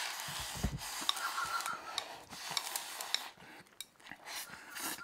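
Chopsticks rapidly scraping and clicking against a ceramic rice bowl held to the mouth as rice is shovelled in, with small eating noises.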